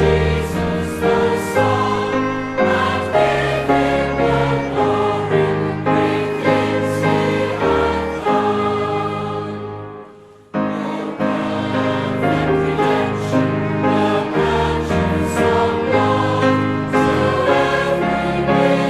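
Choir singing a hymn with accompaniment. About ten seconds in, the singing fades out and a new piece starts straight after.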